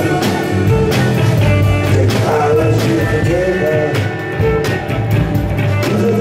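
Live rock band playing at concert volume: amplified guitars over a steady drumbeat, with a singer's voice.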